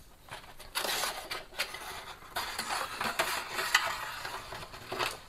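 Chunky aroid potting mix with orchid bark being added to the bottom of a ceramic pot: a gritty, crackling rustle full of small irregular clicks, starting about a second in.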